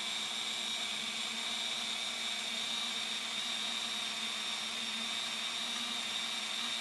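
Handheld rotary tool with a small burr running steadily with a high whine, grinding out the side scoops of a 1:64 diecast metal car body.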